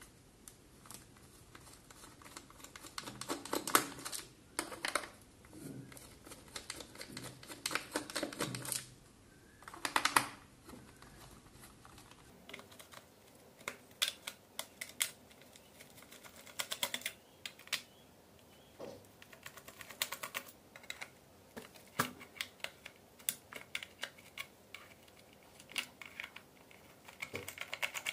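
Small screws being backed out of a plastic Bluetooth speaker housing with a precision screwdriver: irregular clicks and quick runs of ticking from the driver in the screw heads and the handling of the plastic case, with a few louder knocks.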